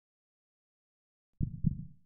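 A low heartbeat, one 'lub-dub' double thump about a second and a half in, after silence, fading as it ends.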